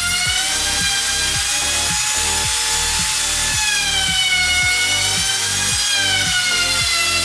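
Compact trim router running as it cuts along the edge of a wooden cutting board: a high, steady whine that dips in pitch and recovers as the bit loads in the wood. Background music with a regular beat plays underneath.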